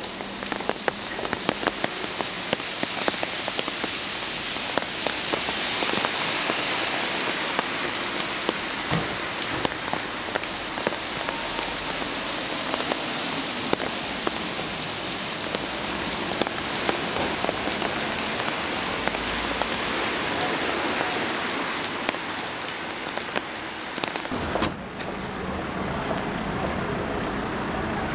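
Rain falling steadily on a parked car, with many separate drops ticking on the windshield and bodywork. About 24 seconds in it cuts abruptly to a steadier street noise.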